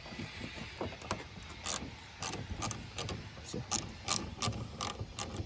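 Hand ratchet wrench clicking in short, irregular strokes while backing out the bolts that hold a side mirror to the car door.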